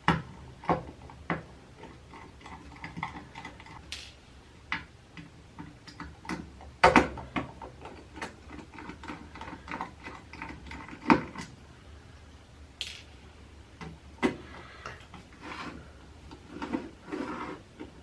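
Irregular clicks and knocks of hand tools and plastic and metal parts being handled while a VHF ham radio transceiver is taken apart, with a few louder knocks around seven and eleven seconds in.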